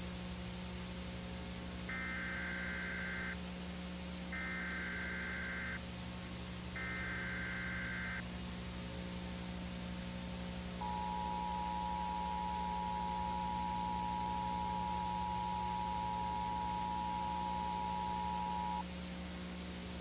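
Emergency Alert System signal: three short bursts of warbling digital data (the SAME header) about a second and a half each, then the steady two-tone EAS attention signal for about eight seconds, cutting off abruptly. A constant low mains hum from the VHS tape runs underneath.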